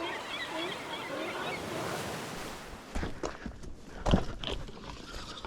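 Small birds chirping over a steady wash of surf. From about halfway there is an irregular run of sharp knocks and snaps: footsteps on a forest trail.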